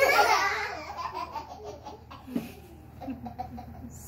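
A young girl laughing: a loud burst of laughter at the start that breaks into short giggles and trails off about two seconds in.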